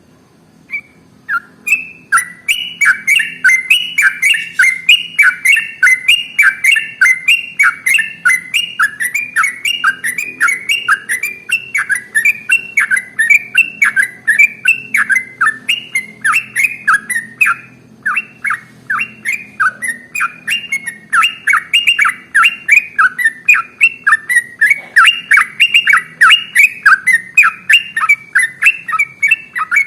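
Yellow-vented bulbul (trucukan) singing a long, unbroken run of rapid, repeated bubbling notes, several a second, starting about a second in.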